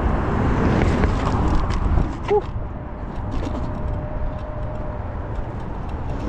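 Wind rushing over the microphone and road rumble as a Wolf King GTR electric scooter pulls away from a stop and picks up speed, with a faint steady whine in the second half and a brief chirp about two seconds in.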